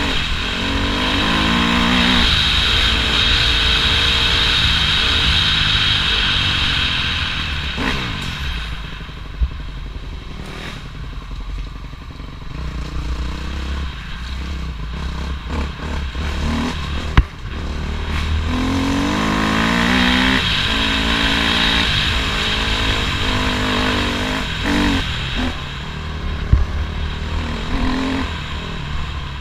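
Dirt bike engine pulling hard and revving up through the gears twice, with easing off and coasting in between. A few sharp knocks from the trail, and low wind rumble on the microphone.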